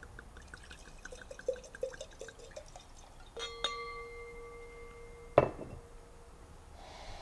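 Red wine glugging out of a bottle into a wine glass in a run of small gurgles. About three and a half seconds in, a clink sets the glass ringing with a clear tone for about two seconds. Near five and a half seconds, a single knock as the bottle is set down on the table.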